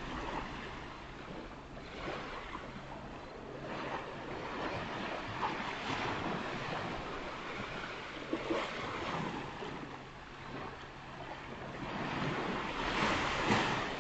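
Ocean waves breaking on a beach: a steady wash of surf that ebbs and swells, growing louder near the end, with some wind on the microphone.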